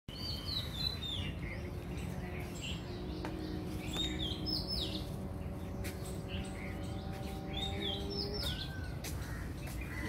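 Bird song: a short phrase of high chirps stepping down in pitch, repeated about every three seconds, over outdoor background noise and a faint steady hum.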